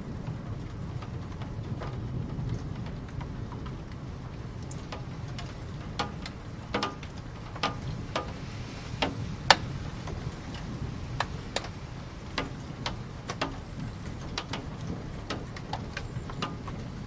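Steady rain with a low rumble underneath, and single large drops striking a hard surface in irregular sharp taps, coming more often about a third of the way in.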